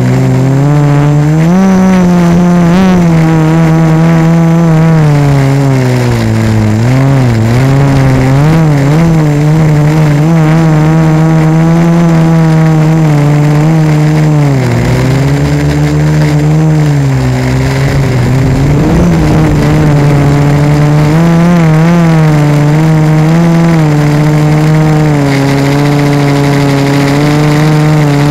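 Quadcopter's four A2212 1000Kv brushless motors spinning 1045 propellers in flight, heard through a camera bolted directly to the frame: a loud, steady buzzing whine whose pitch wavers up and down with the throttle. The pitch dips briefly several times, and for a few seconds past the middle a rougher rushing noise joins it.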